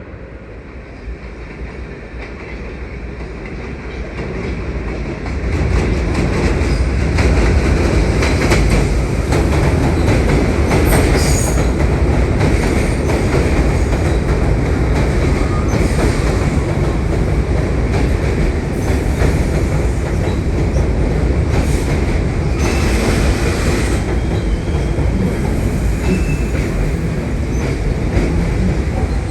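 New York City subway train coming into the station, growing louder over the first five or six seconds and then running at a steady loud rumble with wheel clatter and some brief high wheel squeals.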